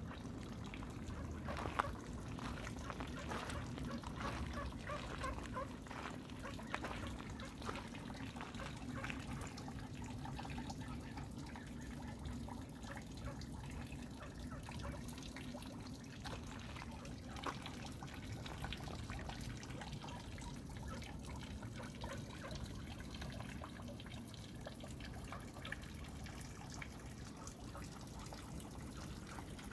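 Water trickling and dripping steadily, with many small splashes over a steady low hum.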